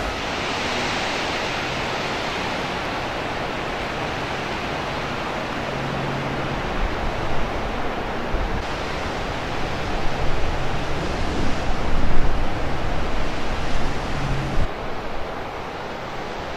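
Strong wind rushing and gusting across the microphone, swelling louder in gusts about halfway through, with a faint low hum underneath.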